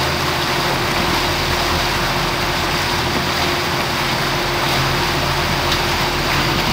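Boat engine running under way with a steady drone, mixed with the rush of the churning wake behind the stern.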